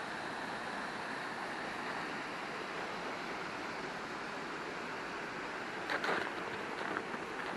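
Steady rush of a waterfall running under and behind ice. A few short scuffs and knocks come near the end.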